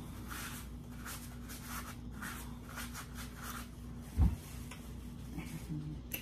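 Soft rhythmic rustling and chewing, about two a second, as a paper napkin is crumpled and wiped over hands and mouth while eating. One dull thump about four seconds in.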